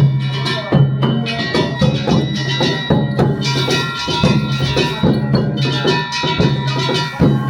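Japanese festival float music: drums and ringing metal bells struck in a quick, steady rhythm over sustained tones.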